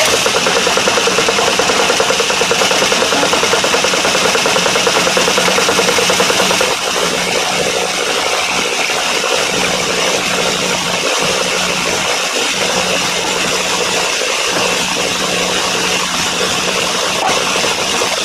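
Metal lathe running with a parting tool cutting into a spinning brass cylinder: a steady motor hum under the hiss of the cut. The sound drops a little in level about seven seconds in.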